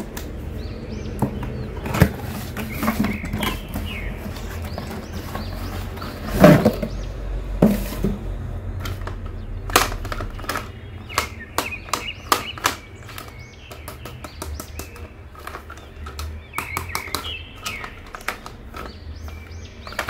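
Hands handling a cardboard toy box and a plastic dancing figure: scattered clicks, taps and rustles, with one louder knock about six seconds in. Faint high chirping sounds come and go in the background.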